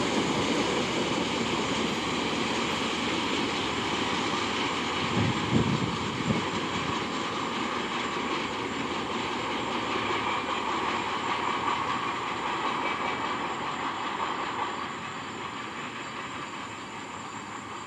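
Freight train of tank cars rolling past: a steady rumble and rail noise with two heavy knocks about five and six seconds in. The sound slowly fades and drops further near the end.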